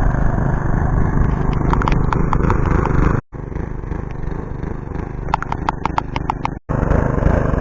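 Small lawnmower engine running steadily, with a couple of runs of short clicks. The sound cuts out abruptly twice.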